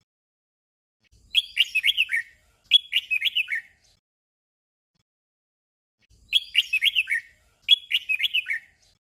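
Red-whiskered bulbul singing a short warbled phrase twice in quick succession, then repeating the same doubled phrase about five seconds later.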